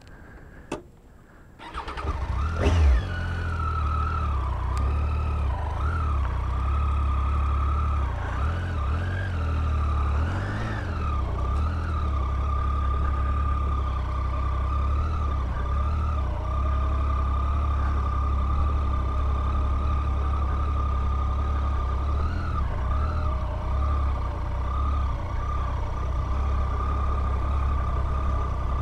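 Triumph Tiger 800's three-cylinder engine starting up about two seconds in, after a single click. It then runs steadily at low revs with a steady whine over it as the bike moves off slowly, the pitch rising and falling a little in the first few seconds of riding.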